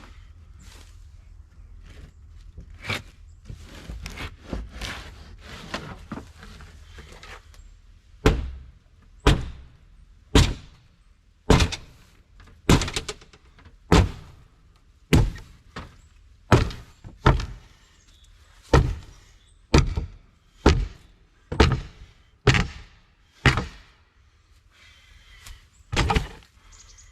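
A run of dull thunks, about one a second, starting about eight seconds in, after a stretch of low rumble with scattered light knocks.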